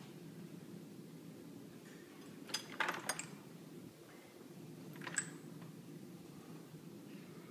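A supply cart's drawer is pulled open with a short clatter about two and a half seconds in, and the glass ampoules and vials in its tray clink. One more short clink comes about five seconds in, over a steady low hum.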